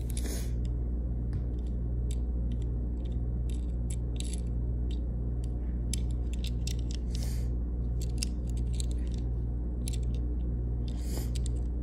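A steady low hum runs throughout, with faint, scattered light clicks from a small Hot Wheels toy car being turned over in the fingers.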